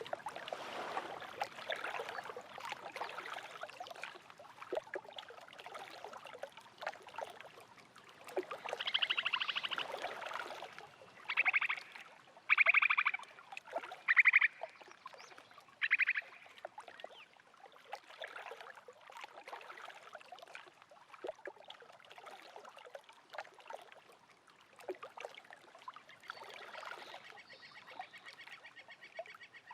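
Small waves lapping at a lake shore, with a water bird giving a series of five short, buzzy calls between about nine and sixteen seconds in, and a fainter call near the end.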